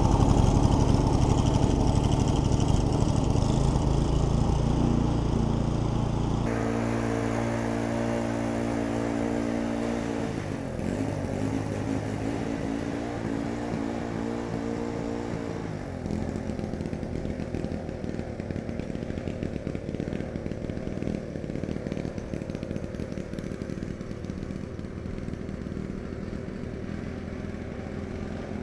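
Snowblower's small engine running under load as it tows a log splitter, growing fainter as it moves away. Its tone changes abruptly about six seconds in.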